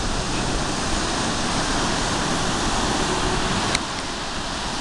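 Ocean surf breaking on the beach, a steady rushing noise, with wind buffeting the microphone. A short click comes about three and a half seconds in, after which it is a little quieter.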